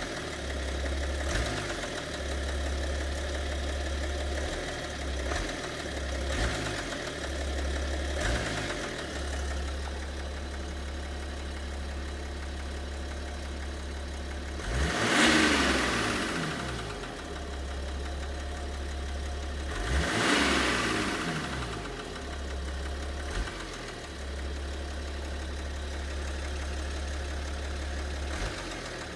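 BMW 730d's M57 3.0-litre inline-six turbodiesel idling, blipped briefly a few times and revved up and back down twice, about halfway and two-thirds through. The engine has a knock that the owner cannot identify.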